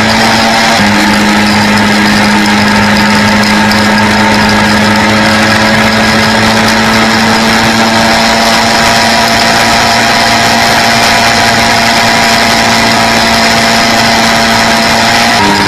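Quad (ATV) engine running at a steady, even pitch while cruising on the road, with wind and road noise. The engine note shifts slightly near the end.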